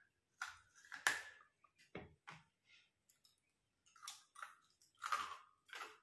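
Ice being crunched and chewed between the teeth: a string of short, sharp, irregular crunches, loudest about a second in and again near the end, with a quiet pause in the middle.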